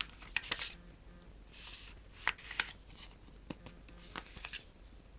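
Hands handling and opening a plastic Blu-ray case and its packaging: a series of sharp plastic clicks with short bursts of rustling in between.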